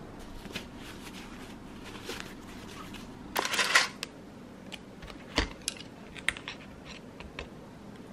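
Small clicks and clinks of a metal fork and a plastic tub on a ceramic plate at a table, with a short rustle a little past three seconds in and one sharper knock about halfway.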